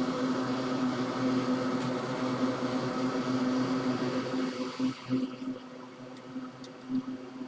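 Steady hum of a small electric motor or fan, with a clear low pitch. It drops away about four and a half seconds in, leaving a quieter, uneven hum and a few faint ticks.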